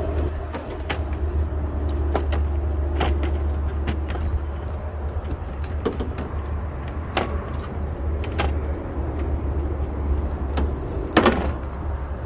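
Plastic push clips popping and a hard plastic radiator cover clicking and rattling as it is pried up and pulled off, in scattered sharp clicks with the loudest cluster near the end. A steady low rumble runs underneath.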